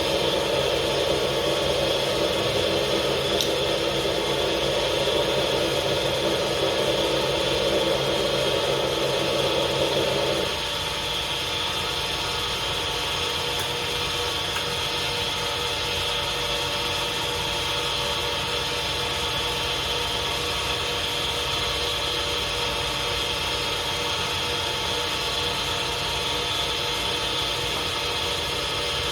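Lathe running steadily, with a louder rough noise on top for the first ten seconds or so that cuts off suddenly, leaving the machine's steady hum.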